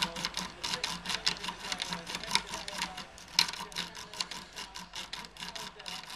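Steel saw-style lock-pick rake scrubbed rapidly in and out of a pin tumbler lock under tension: a fast, even rattle of metal clicks, about eight a second, as the rake strikes the pins.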